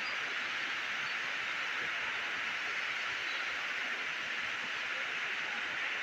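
Steady rushing of a waterfall's falling water, an even hiss without breaks.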